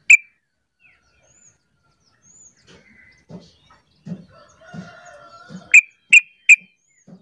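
Yellow-vented bulbul giving sharp, high call notes: one at the start and three in quick succession about six seconds in. Between them a rooster crows faintly in the background, with a few low, evenly spaced pulses.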